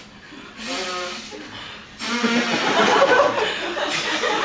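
A performer's voiced sound effect of inflatable floaties being blown up, a short pitched vocal tone with a breathy hiss, then audience laughter from about two seconds in, which is the loudest part.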